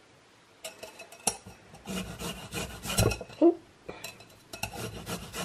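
Light clinks, knocks and scrapes of a metal rasp grater and a spatula being handled against a plastic container, irregular and starting about half a second in, loudest about three seconds in.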